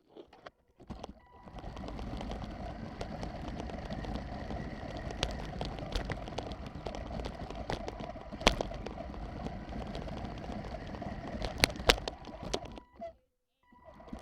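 Radio-controlled FPV race truck driving over rough ground, a rough rumble with frequent clicks and knocks and a steady high whine underneath. The sound cuts out briefly near the end.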